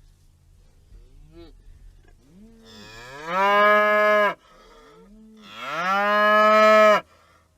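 A cow mooing twice: two long moos, each rising in pitch and then holding steady, both ending abruptly. The second moo is the longer and louder of the two.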